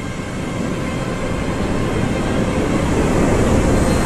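Cinematic sound of a nuclear explosion: a deep, rumbling roar that swells steadily louder, with a faint steady high tone over it.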